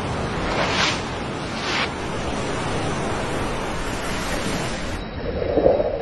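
Sea water rushing and washing in a steady roar of surf, with two louder surges about one and two seconds in. Near the end the sound changes and a short low hoot-like tone comes in.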